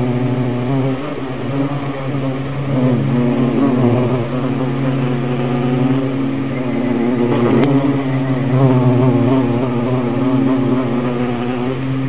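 Violet carpenter bee (Xylocopa violacea) buzzing close by: a steady, low drone whose pitch wavers slightly.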